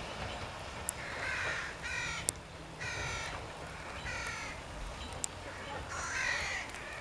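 A bird giving about five harsh, repeated calls spaced roughly a second apart, with a few sharp ticks in between.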